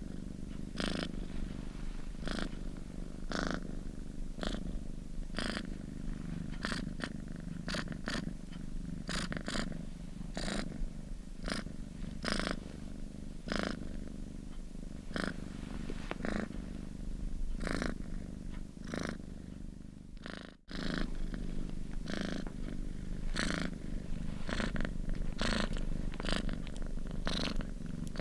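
Domestic cat purring close up: a steady low rumble with rasping pulses about once or twice a second. There is a brief drop-out about two-thirds of the way through, after which the purring resumes.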